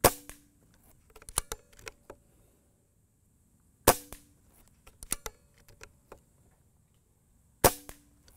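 Benjamin Marauder .22 PCP air pistol firing three shots about four seconds apart, each a sharp crack with a short ring. Between shots comes a quick run of light clicks as the bolt is worked to chamber the next pellet.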